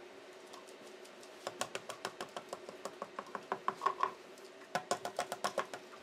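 A kitchen utensil scooping flour, with a rapid run of light clicks and taps against a bowl starting about a second and a half in, over a faint steady hum.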